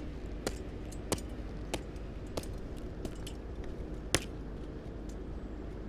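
A series of separate sharp clicks, about one or two a second, over a steady low hum. The loudest click comes about four seconds in.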